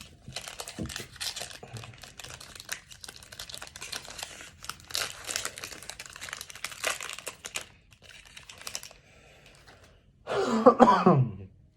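Foil wrapper of a Panini Mosaic trading-card pack being torn open and crinkled, with the cards inside handled: dense, irregular crackling and rustling for most of the stretch. Near the end a short, loud vocal sound that falls in pitch.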